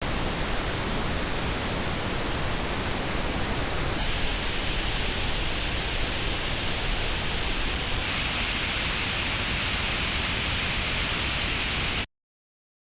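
Pink noise test signal played through earbuds and picked up by an artificial ear simulator for a frequency-response comparison. It is a steady even hiss in three stretches of about four seconds each, and the treble balance changes about four seconds in and again about eight seconds in. It cuts off suddenly about twelve seconds in.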